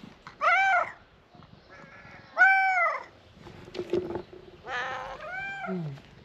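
Cat meowing three times, each a high, arching call about half a second long, the middle one the loudest.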